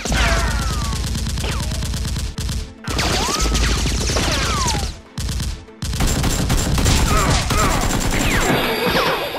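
Rapid automatic gunfire sound effects dubbed onto Nerf blaster fire, dense volleys mixed with falling whistling tones. The firing breaks off briefly about two and a half seconds in and twice more around five and a half seconds.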